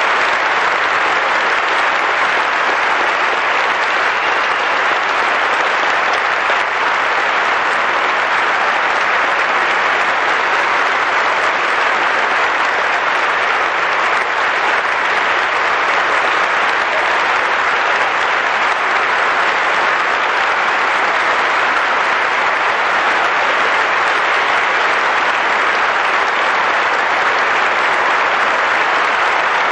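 Audience applauding steadily and at length, a sustained ovation for a barbershop quartet.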